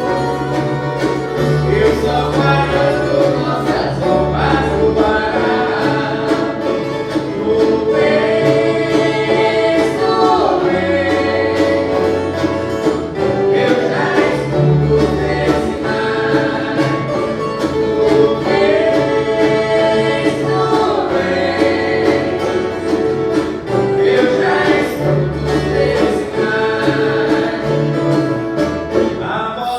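Viola caipira orchestra playing a Christmas song, strummed steadily over a moving bass line, with voices singing together.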